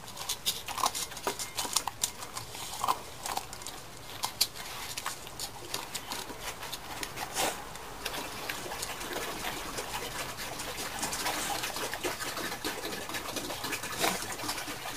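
Old dog eating: a run of irregular short clicks and smacks from chewing and licking, coming thick in the first half and thinning out later.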